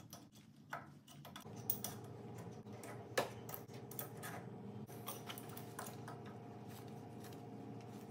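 Irregular metal clicks and ticks of a thread tap being turned with a small crescent wrench in the exhaust stud hole of a VW 1600 dual-port cylinder head, cutting new threads a few turns at a time. A steady low hum starts about a second and a half in.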